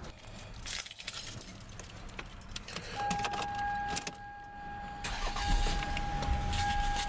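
Keys jangling and clicking as the Toyota Sienna's door and ignition are worked. About three seconds in, a steady, high electronic warning tone from the van starts and holds.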